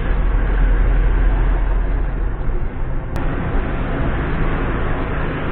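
Ready-mix concrete mixer truck driving loaded up a steep road, its diesel engine running steadily under load with a deep low drone. There is a single light click about three seconds in.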